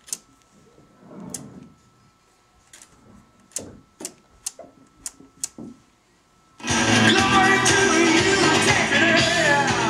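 Sharp clicks from an Audio Research SP-4 preamplifier's rotary input selector being switched through its positions, about eight clicks over six seconds with the music cut off. Then music with guitar cuts in suddenly at full level about two-thirds of the way in, once the selector is back on the playing source.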